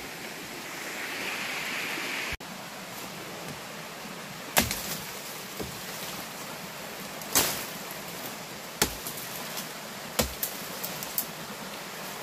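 Footsteps pushing through dense forest undergrowth, with dry twigs snapping sharply several times, over the steady rush of a small stream.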